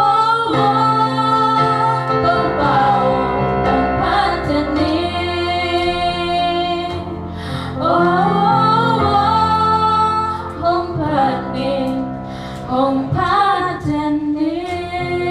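Two female voices singing a church song as a duet over an electronic keyboard accompaniment, holding long notes that swell and fall away in phrases.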